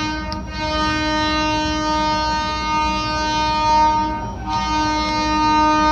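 Train horn sounding a long, steady blast at one pitch, breaking off for a moment about four seconds in and then sounding again.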